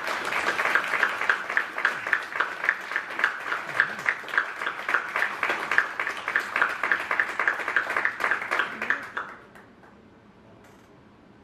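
Audience and dignitaries applauding, a dense steady clapping that dies away about nine seconds in, leaving a quiet hall.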